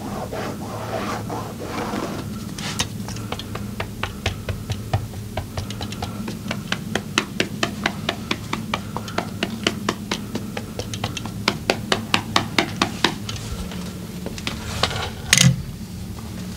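Rapid percussive hand strikes of a massage, several a second, over background music; one louder thump near the end.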